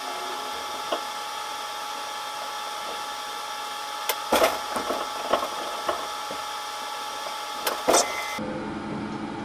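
Subway train cab sound: a steady electrical hum with several steady tones, broken by clattering knocks of the wheels over the depot's track switches about four seconds in and again about eight seconds in. Near the end the sound changes to a lower, steady hum.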